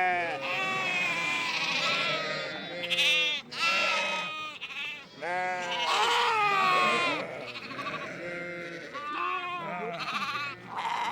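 A flock of sheep bleating, many overlapping quavering calls one after another.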